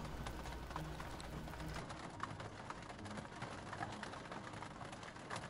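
Rain falling on a parked light aircraft, heard from inside the cockpit as a faint hiss full of small scattered drop ticks. A low hum underneath stops about two seconds in.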